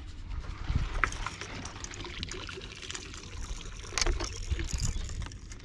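Water lapping and trickling against the hull of a small open boat, with wind rumbling on the microphone.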